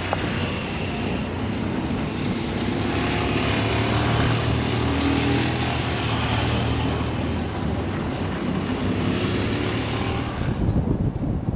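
A moving vehicle's steady engine drone, with a low hum under wind and road hiss, picked up from the back of the moving vehicle. The high hiss falls away about ten and a half seconds in.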